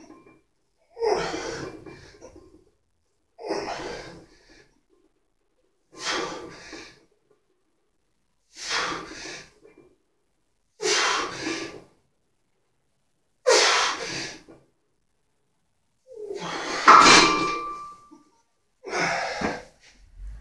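A man's hard, forceful breaths, one with each bench-press repetition: eight of them about every two and a half seconds. The one about three-quarters through is longer and the loudest, a strained effort.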